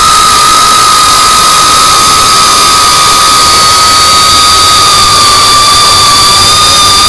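A 3.5-inch FPV quadcopter's brushless motors and propellers whine at a high, nearly steady pitch that wavers slightly, over loud propeller and wind hiss on the drone's onboard camera microphone.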